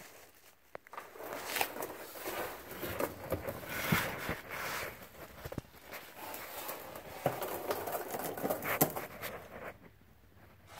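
Irregular rustling and scuffing with scattered sharp clicks: a person shifting about on the floor under a vehicle and handling the phone that is filming.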